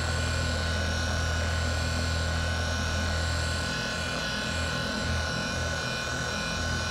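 Electric random orbital polisher with a thin denim pad running against automotive paint with a one-step polish, cutting down haze and orange peel in the clear coat. A steady motor hum with a high whine; from about halfway the low drone swells and fades in a slow regular pulse.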